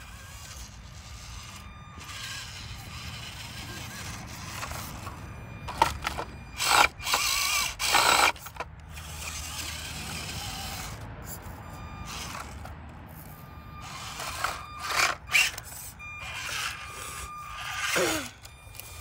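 Mini RC rock crawler's small electric motor whining in bursts as it climbs over granite blocks, loudest in two stretches, around the middle and near the end.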